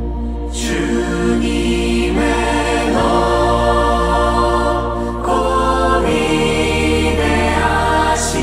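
Slow live worship music: a woman and a congregation singing together over sustained synthesizer chords and a steady low bass pad, with the chords changing every second or two.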